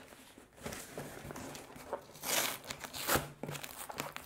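Cardboard shipping box being pulled open: packing tape tearing and flaps scraping and rustling in a few scratchy bursts, the loudest about two seconds in. The tape was not cut all the way through, so the flaps are being forced against it.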